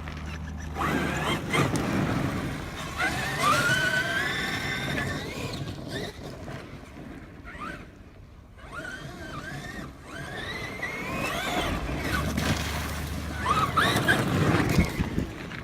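Traxxas X-Maxx 8S RC monster truck being driven, its brushless electric motor whining up and down in pitch with the throttle several times over a broad rush of noise.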